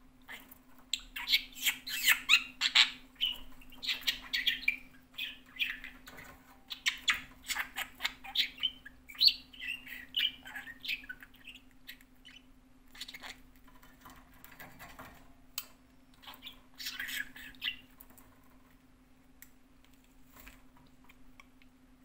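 Pet budgerigar chattering and squawking in quick runs of short, high calls, busiest in the first half and thinning out toward the end.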